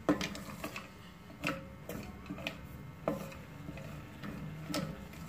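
Wooden spatula stirring chopped almonds in ghee in a stainless steel pot, with a few irregular light knocks and scrapes of wood on metal as the nuts are roasted over low to medium heat.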